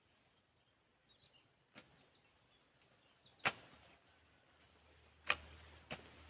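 Four sharp knocks at uneven intervals, the loudest about three and a half seconds in, with faint bird chirps in the first few seconds and a low hum coming in after about four and a half seconds.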